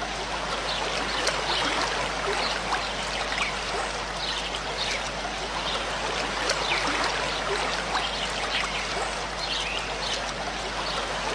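Floodwater flowing over a road: a steady, unbroken rush of moving water.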